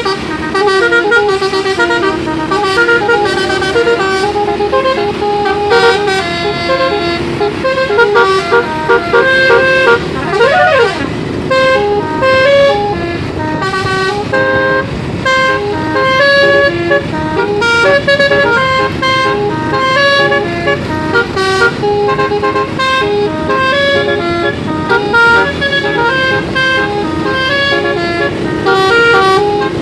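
Indonesian basuri 'telolet' bus horns playing a continuous tune of stepped, steady notes, one note quickly following another, with a brief gliding note about ten seconds in.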